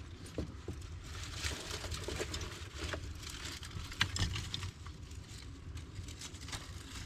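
Freshly lit kindling fire of dry leaves and bark crackling, with many quick irregular pops and ticks, over a steady low rumble.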